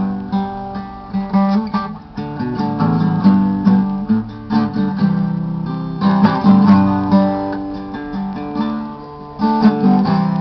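Acoustic guitar strumming chords in a steady rhythm, with harder strokes about six seconds in and again near the end.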